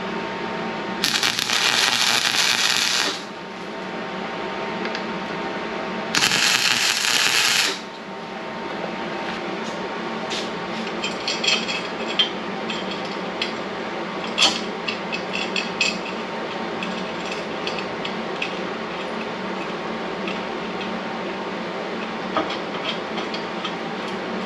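Welder striking two tack welds on steel tubing, each a two-second steady crackling hiss, the first a little longer than the second. A run of light metallic clicks and taps follows, over a steady hum in the shop.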